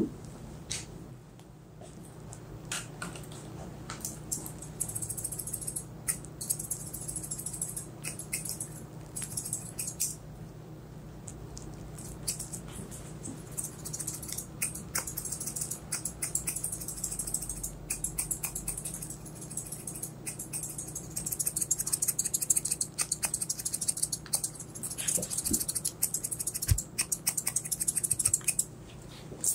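Close-miked barber's scissors snipping through hair: runs of crisp cuts, sparse at first and coming in quick, dense runs in the last third.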